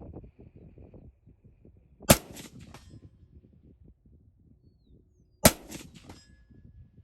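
Two rifle shots about three and a half seconds apart, with gusty wind rumbling on the microphone throughout. A faint ring follows the second shot, typical of a round hitting a steel target.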